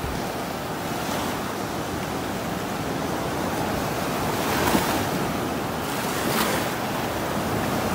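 Ocean surf: waves breaking and washing up a sandy beach as a steady rush, swelling briefly about midway and again a little later.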